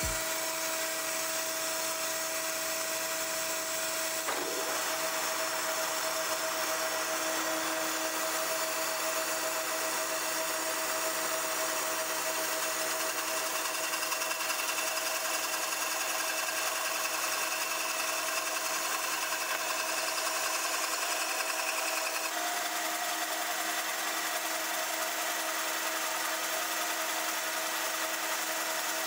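Profiling lathe turning a mountain cherry cup blank while its tool bit cuts out the inside: a steady machine hum with a hiss of cutting. The tone shifts slightly about four seconds in and again a little past twenty seconds.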